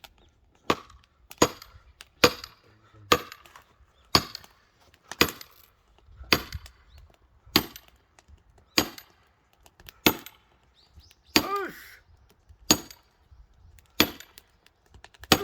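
Repeated strikes splitting a firewood log, about one a second, each a sharp crack with a bright ringing edge. A short grunt comes with one strike near the end.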